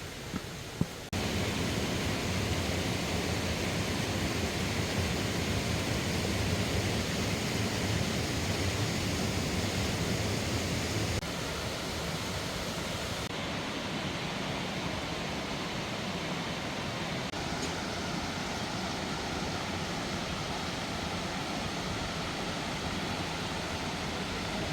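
Steady rushing of a mountain stream's water, stepping up in level about a second in and dropping back a little about 11 seconds in.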